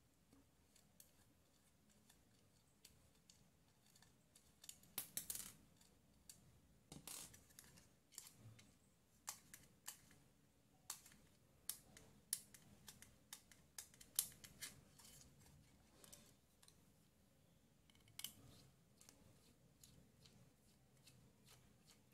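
Small screwdriver working screws out of an amplifier board's metal back plate: faint, scattered clicks and scrapes of metal on metal, busiest through the middle stretch, with handling of the board in between.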